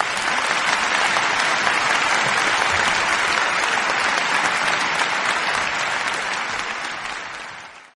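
Audience applauding steadily, dying away in the last second.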